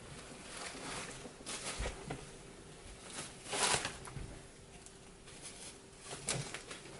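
Soft rustling of a knit fabric shawl being handled and wrapped around the shoulders, in a few brief swishes, with a low thump about two seconds in.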